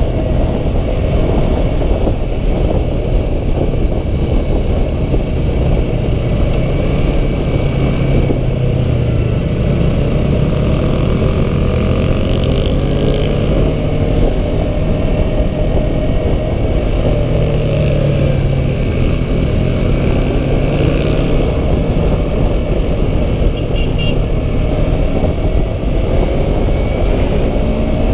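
Yamaha R3 parallel-twin motorcycle engine running under way, its pitch rising and falling as the throttle opens and closes, with wind rumble on the microphone.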